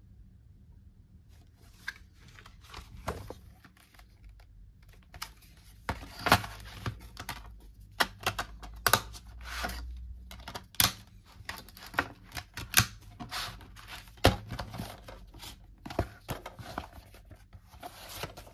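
Hands handling plastic DVD cases and a cardboard slipcover: an irregular run of sharp plastic clicks, taps and rustling, starting about a second and a half in.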